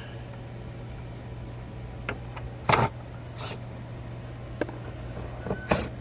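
A few short clicks and knocks from tools working at corroded screws in a rooftop RV air conditioner's housing, the loudest a sharp clack about three seconds in, over a steady low hum.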